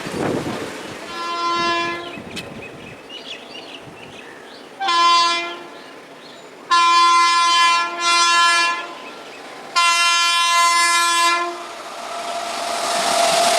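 Indian Railways locomotive air horn sounding five blasts: a fainter one near the start, a short one about five seconds in, two back-to-back, and a longer last blast. Near the end the noise of the approaching train builds up.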